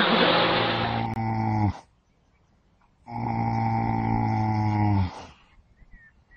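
An animal snoring: two long, low snores, the second starting about three seconds in.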